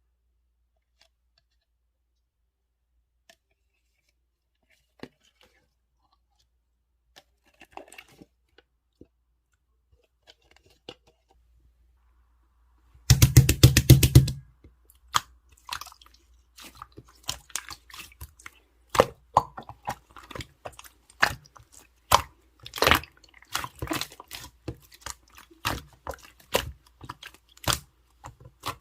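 Iced Americano slime being handled: a few faint clicks at first, then about thirteen seconds in a second-long run of rapid crackling, followed by many sharp clicks and pops as it is squished and pressed.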